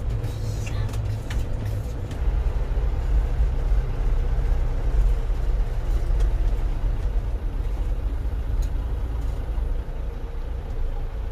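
Motorhome's engine running with a low, steady rumble, heard from inside the cab while driving slowly and pulling into a parking bay.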